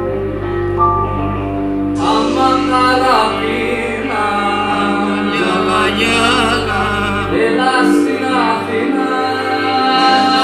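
Live folktronica music: a voice enters about two seconds in, singing a wavering, ornamented Balkan-style line over sustained chords and a deep drone. The deep bass drops out near the end.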